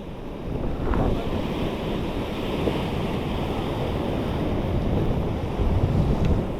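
Ocean surf washing against a rock shore, a steady rushing with low swells, with wind buffeting the microphone.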